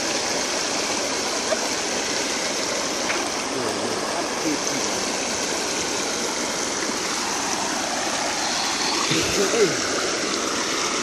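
Stream water rushing steadily through a stick-fence weir, an even hiss of white water.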